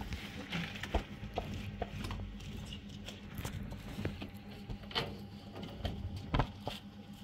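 Scattered soft knocks, slaps and scrapes of hand plastering: wet plaster scooped from below and pressed onto a wall by a gloved hand. A faint steady hum runs underneath.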